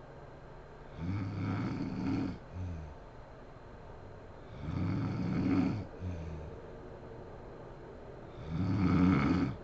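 A sleeping woman snoring: three loud snores about four seconds apart, each followed by a shorter, softer breath out.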